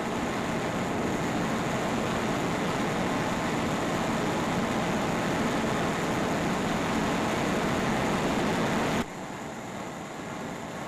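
Steady machinery roar of a steam locomotive running on the rollers of a locomotive testing plant, a dense even noise with no beat. It drops abruptly in level about nine seconds in.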